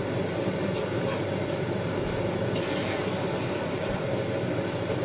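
Steady low rumbling hum of a household appliance running, even in level throughout.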